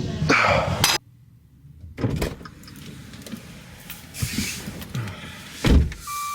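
Heavy panting breaths that cut off abruptly about a second in. Quiet rustling and small clicks follow, then a car door shutting with a thump near the end and a steady beep tone right after it.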